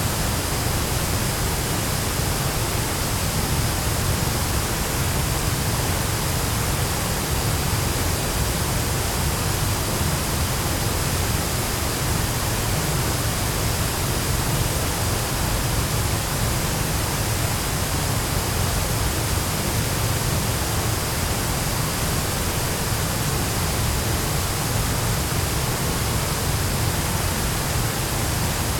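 Chōshi Ōtaki waterfall: a steady, unbroken rush of falling water.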